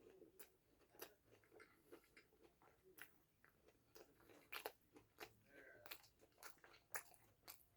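Faint, crisp crunching and chewing of a corn dog coated in crushed Flamin' Hot Cheetos. Sharp crunches come irregularly, about one or two a second, more often in the second half.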